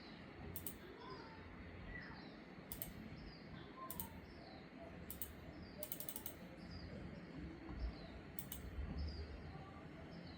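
Logitech G Pro X Superlight 2 Dex gaming mouse buttons clicking: single sharp clicks a second or more apart, with a quick run of about five clicks just past the middle.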